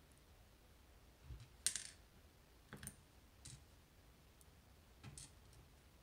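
A handful of faint, sharp metallic clicks as steel tweezers pick pins out of the Assa Twin 5700 lock cylinder, with a soft thump just before the sharpest click about two seconds in.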